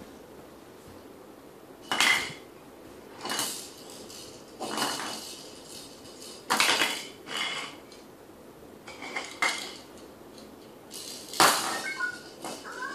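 Sharp knocks and clatter on a hardwood floor, about seven in irregular succession with the loudest near the start and near the end, from a crawling baby's hands and a small plastic toy hitting the boards.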